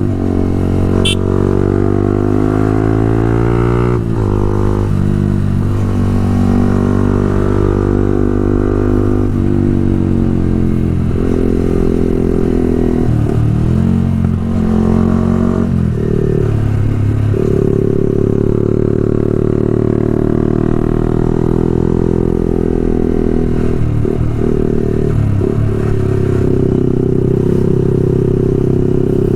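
Motorcycle engine running through an aftermarket Pro Liner full-system exhaust while riding. The revs climb and drop sharply a couple of times, waver up and down for a few seconds, then hold steady.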